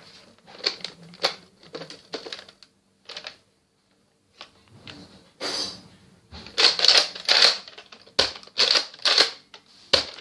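Plastic clicks and clattering from a Nerf Retaliator blaster being handled, sparse at first, then a denser, louder run of rattles and sharp clicks in the second half.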